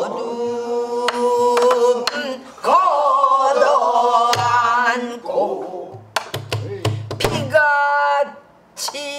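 A woman singing pansori in long, wavering held notes, accompanying herself on a buk barrel drum struck with a stick and her bare hand. The drum strokes are sharp, with a quick run of them about six to seven seconds in.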